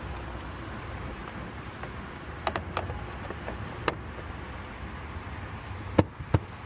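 Light clicks, then three sharp knocks near the end, as the new crankcase ventilation filter for a Cummins 6.7 is handled and fitted into its housing, over a steady hum of background traffic.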